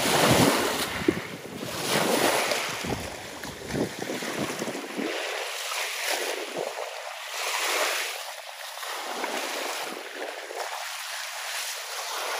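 Small Lake Erie waves washing onto the shore, swelling and fading every couple of seconds. Wind buffets the microphone with a low rumble for the first few seconds.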